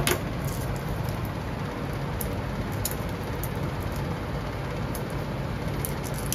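Steady low hum and hiss of a running appliance or fan, with a few faint small clicks and crackles as a garlic clove's papery skin is peeled off by hand.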